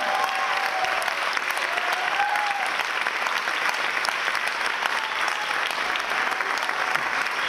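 Audience applauding steadily, a dense sustained clapping of many hands.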